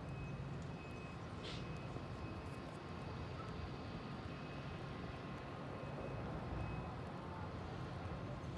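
Distant excavator's diesel engine running steadily as it pulls the demolition cable: a low rumble with a faint steady whine above it.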